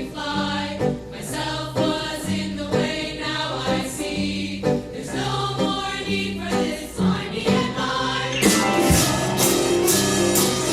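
Choir singing over a stepping bass line and instrumental accompaniment. About eight and a half seconds in, the music grows brighter and regular strikes of hand percussion join in.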